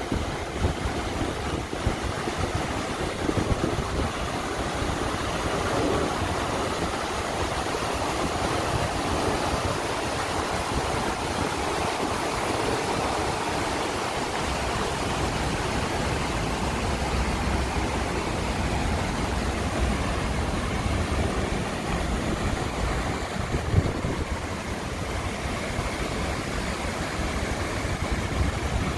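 Water splashing steadily down a tiered cascade fountain, over a low hum of city traffic, with a single brief bump about three-quarters of the way through.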